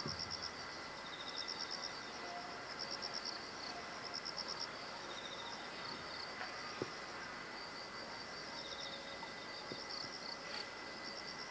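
Insects calling outdoors: short trains of rapid high chirps repeating about every second and a half, stronger for the first few seconds and then fainter, over a steady faint high hum. A single sharp click comes about seven seconds in.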